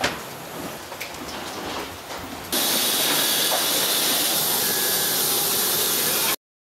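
A few knocks and steps over a low hum in an airport jet bridge, then about two and a half seconds in a sudden loud, steady hiss with a thin high whine from a jet airliner at the gate, cutting off suddenly near the end.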